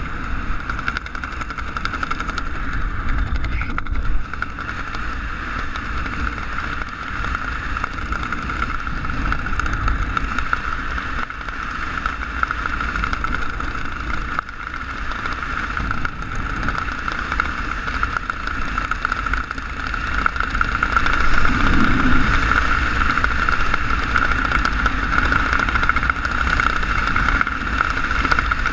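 Wind rushing over a head-mounted GoPro Hero 3 under an open parachute canopy: steady buffeting rumble with a constant high hum running through it, growing a little louder about two-thirds of the way in.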